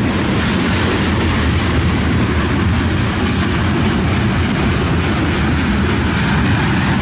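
Freight train tank cars rolling past on the rails: a steady, loud rumble of steel wheels on track.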